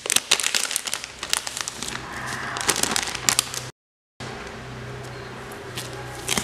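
Clear plastic packaging crackling and crinkling as a phone soft case is handled and pulled out of it. The sound cuts out for half a second about two-thirds through, after which there are only faint handling clicks over a low hum.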